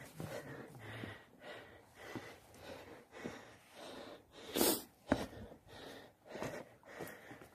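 Hiker's heavy, laboured breathing on an uphill climb, hard regular breaths in and out, with faint footsteps on the trail; one sharp, louder breath about halfway through.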